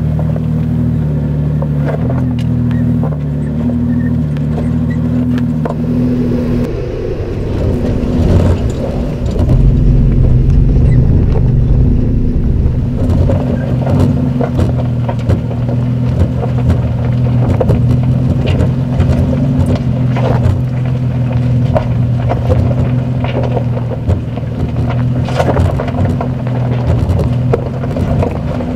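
2020 Toyota 4Runner TRD Pro's 4.0-litre V6 running at low revs as it crawls up a rocky dirt track, with scattered clicks and crunches of stones under the tyres. About seven seconds in, the engine note changes and grows louder, then runs steadily on.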